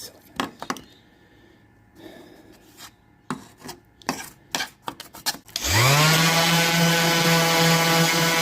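A few sharp clicks and knocks of tool handling, then about two-thirds of the way in an electric power tool spins up quickly and runs at a steady high speed.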